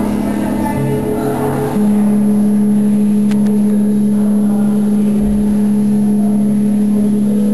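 Tibetan singing bowls ringing. A strong, steady low hum sets in about two seconds in and holds without fading, over fainter, higher bowl tones.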